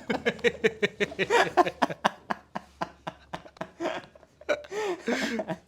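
Men laughing in quick, repeated bursts.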